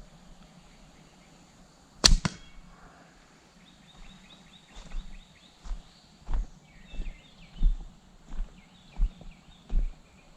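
A slingshot shot about two seconds in: a sharp snap with a second crack right after and a brief metallic ring, typical of a steel ball striking a metal gong target. Later, soft regular thuds about every 0.7 s, like footsteps on the ground, with birds chirping faintly.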